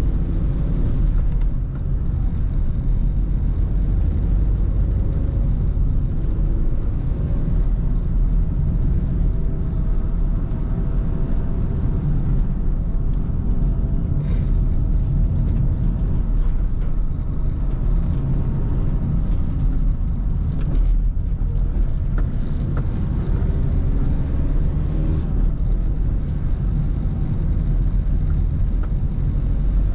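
A car driving: a steady engine and road rumble, with the engine note drifting slightly up and down.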